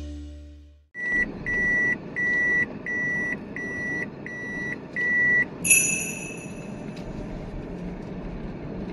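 A vehicle's reversing beeper sounds seven short, evenly spaced high beeps, about one every 0.7 s, over a steady background noise. Just after the beeps stop, a single higher electronic tone rings out and fades over about a second.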